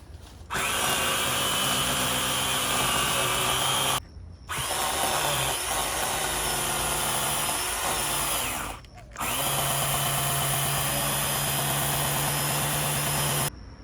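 Battery-powered chainsaw cutting into a tree limb in three long runs, stopping briefly twice between them. Its pitch shifts a little under load in the middle run.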